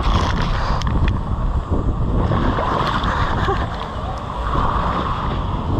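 Raft sliding through water on a halfpipe waterslide: water rushing and splashing against the raft and over the camera, with heavy wind rumble on the moving microphone and a few sharp water hits about a second in.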